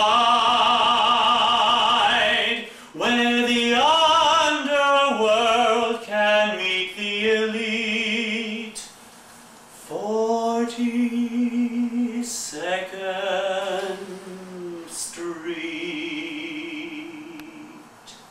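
A man singing a show tune solo and unaccompanied, in long held notes with a wavering vibrato. He breaks off twice for breath and trails off near the end.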